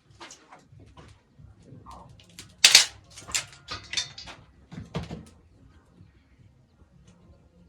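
A run of irregular sharp knocks and clatters, the loudest about two and a half seconds in, dying away in the second half.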